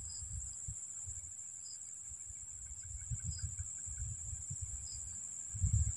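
Insects droning steadily at a high pitch, with a low, irregular rumble underneath that grows louder near the end.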